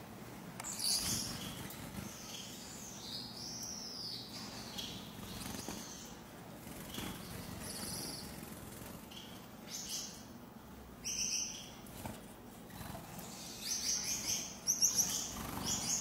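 Gouldian finches chirping and calling off and on, with wingbeats as birds flutter between perches; a quick run of calls near the end is the loudest part.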